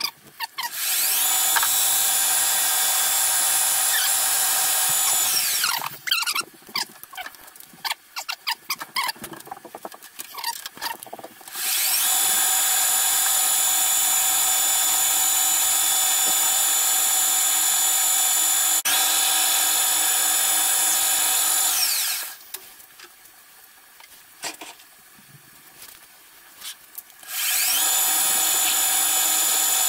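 Pratt & Whitney metal lathe running under power three times, each time spinning up with a rising gear whine, holding a steady whine, then winding down; a twist drill in the tailstock bores into the spinning workpiece. Between runs, scattered clicks and knocks of handling the chuck and work.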